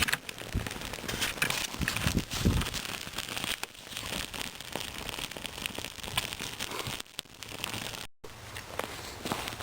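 Dry grass and cattail-fluff tinder bundle crackling and crinkling with many irregular small snaps as it catches and is handled, with a few low puffs early on and a brief dropout about eight seconds in.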